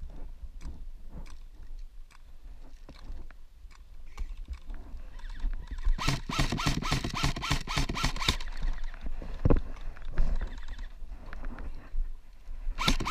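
Airsoft rifle firing a rattling full-auto burst of about two seconds, starting about six seconds in, with a shorter burst near the end and scattered single shots before. Wind rumbles on the microphone throughout.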